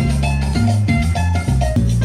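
Latin dance music in the salsa style, with a steady bass line and hand percussion, played over a loudspeaker.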